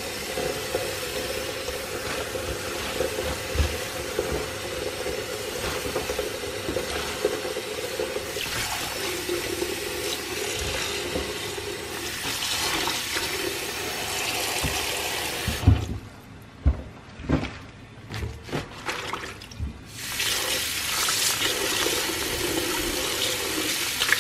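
Tap water running in a steady stream into a plastic bowl of water in a stainless steel sink, filling it for a baking-soda soak of leafy greens. About 16 s in the flow stops for roughly four seconds, with a few knocks, then runs again and splashes over the leaves.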